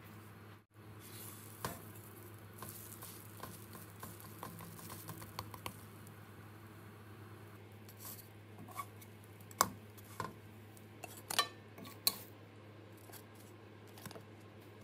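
A wooden spatula clacking and scraping against a ceramic-coated frying pan as oatmeal pancakes are flipped and lifted out: a handful of sharp knocks bunched in the second half, with faint small ticks before them. A low steady hum runs underneath.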